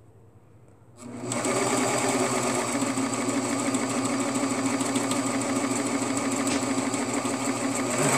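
Serger (overlock sewing machine) starts about a second in and runs steadily at speed, sewing a seam in cotton plaid fabric.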